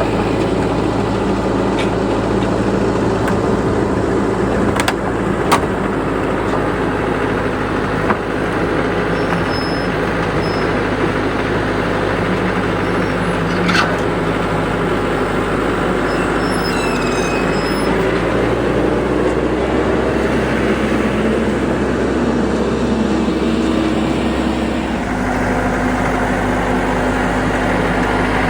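TYM 574 tractor's diesel engine running steadily, with a few sharp clicks along the way. The engine note changes about three quarters of the way through.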